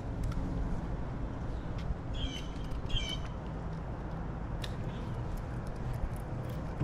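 Two short bird calls, one about two seconds in and another about a second later, over a steady low rumble with a few faint ticks.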